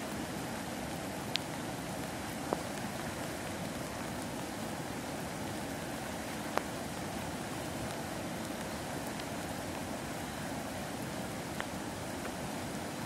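Fast, turbulent river rushing over rocks: a steady, even roar of water, with a few brief sharp ticks scattered through it.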